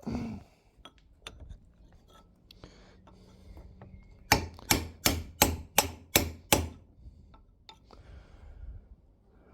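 Hammer blows on metal, seven sharp strikes about three a second a few seconds in, knocking a seized bush out of its housing bit by bit. Before them, light taps and scraping of tools on metal.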